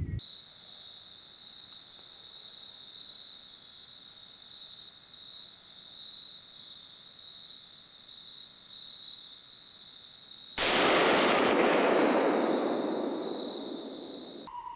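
A single deer-rifle shot about ten and a half seconds in, its report rolling away over two to three seconds. Before the shot there is only a faint steady high whine.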